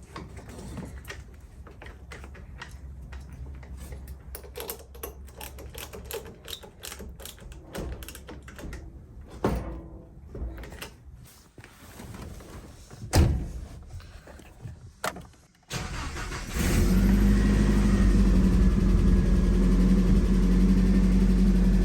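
Clicks and knocks of hand work at the truck for the first fifteen seconds or so, one of them loud about 13 s in. Then, about 16 seconds in, the 1997 Nissan D21 pickup's engine starts and settles into a steady idle with the newly fitted alternator.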